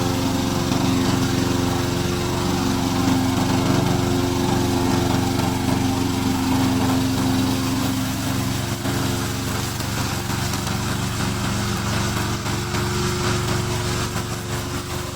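Engine of a remote-control lawn mower running steadily at a constant speed while mowing.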